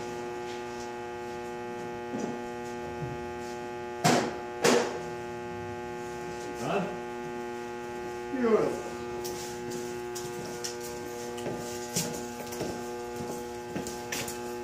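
Steady electrical hum, with a few sharp knocks about four seconds in and two short gliding squeaks a few seconds later.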